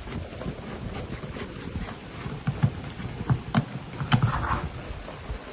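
A Böhler K340 steel knife being driven into a tin can to open it: a string of irregular sharp knocks and metallic clicks as the blade punches and pries through the lid, with a short scraping rasp of torn tin right after the last knock.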